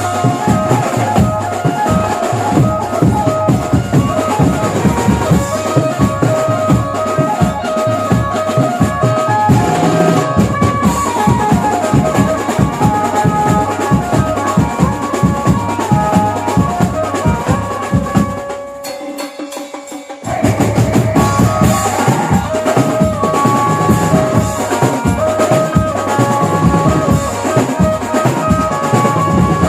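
Banjo-party band music: a steady drum beat under a melodic lead. About nineteen seconds in, the drums drop out for under two seconds and then come back in.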